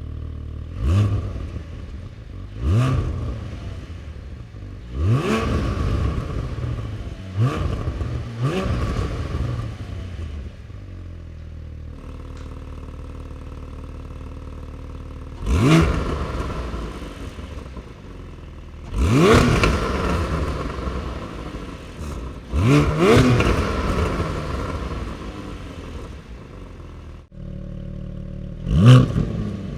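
Porsche 718 Cayman GT4's 4.0-litre flat-six revved while standing, through the stock exhaust and through Fabspeed over-axle GPF delete pipes. About ten quick throttle blips, the pitch shooting up and falling back to idle, a couple held a little longer, with steady idle between them.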